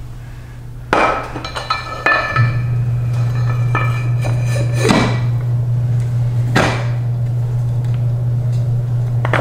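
Metal parts and tools knocking and clinking as a washer transmission is fitted back together: a cluster of sharp knocks about a second in, then single ones around five and six and a half seconds. Under them runs a steady low hum that gets louder about two and a half seconds in.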